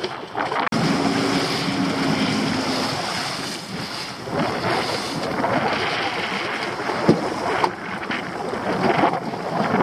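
Wind buffeting the microphone over the wash of the sea against a small open fishing boat, with a sharp knock a little past seven seconds.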